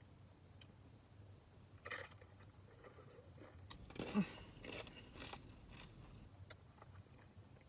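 Close-up eating sounds: a person chewing food with wet mouth noises, with a louder bite and crunch about four seconds in.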